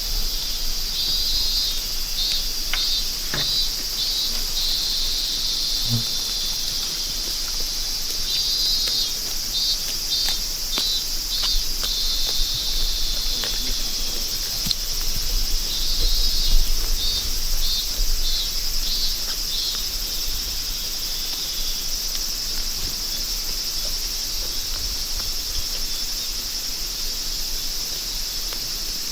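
Steady high insect chorus of summer, with a rhythmic pulsing insect call repeating in three bouts a few seconds long, about every seven seconds. Faint scattered clicks and snaps sound over it.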